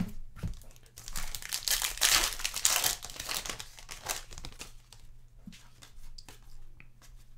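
Crinkling and tearing of a trading-card pack wrapper, loudest in the first half, then short clicks and rustles as the cards are handled.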